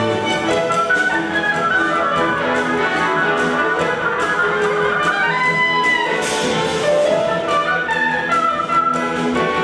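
Oboe playing a fast solo line over a string ensemble of violins and cellos, with a drum kit keeping a steady beat; a cymbal crash sounds about six seconds in.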